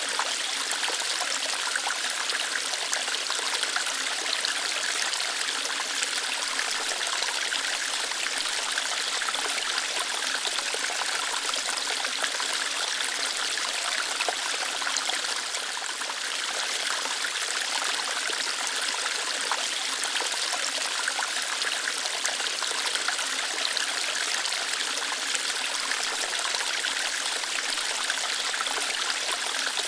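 Small waterfall splashing and trickling over rocks: a steady, light rush of water with little low rumble and a brief slight dip in level about halfway through.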